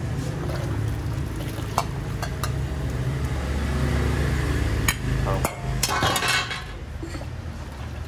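A metal ladle clinks against a large steel stockpot and a ceramic bowl as beef broth is ladled and poured into a bowl of sliced meat and herbs, with a splash of pouring about six seconds in. A steady low rumble runs underneath.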